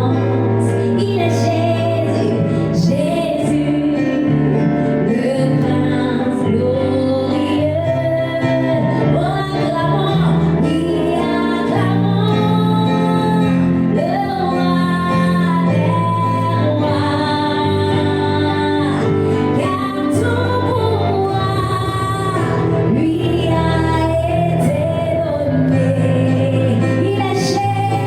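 Worship song: a woman singing a melody over backing music with long held bass notes that change every second or two.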